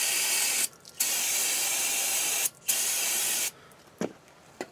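Aerosol brake cleaner sprayed onto a bare front wheel spindle to strip off old grease, in three bursts, the longest about a second and a half, stopping about three and a half seconds in. Two light clicks follow near the end.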